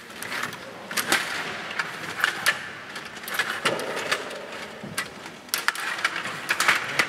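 STIGA table hockey game in play: steel rods rattling and sliding in their slots and plastic players clacking against the puck and the boards, in irregular sharp clicks and knocks.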